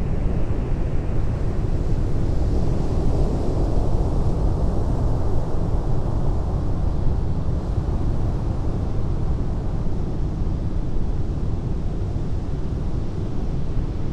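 Pacific surf breaking on a beach: a continuous low rumble of waves, with the wash of a breaking wave swelling a few seconds in and slowly fading.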